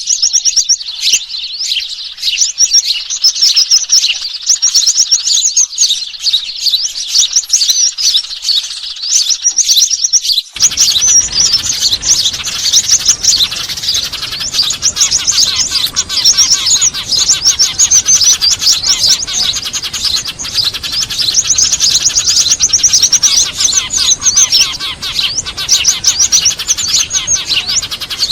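Small birds chirping and chattering in a rapid, busy chorus, a bird-trapping lure recording. About ten seconds in, a faint steady hiss comes in underneath the chirps.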